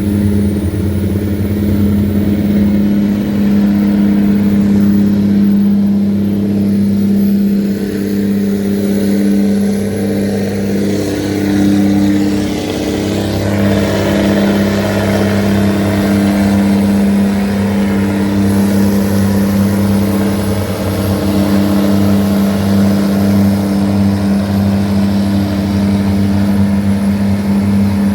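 A river tugboat's diesel engine runs at a steady, heavy drone while it tows loaded barges against the current.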